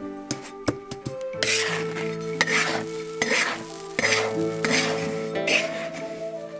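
A metal spatula stirring and scraping table salt in a dry iron wok: a few sharp taps in the first second, then a gritty rasp in repeated sweeps about once a second. Soft background music with held notes plays underneath.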